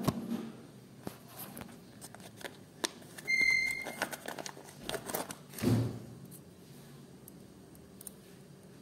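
Clear plastic packet crinkling and steel valve springs clicking against each other as they are unpacked and handled. About three seconds in, a short electronic beep rings out, the loudest sound here.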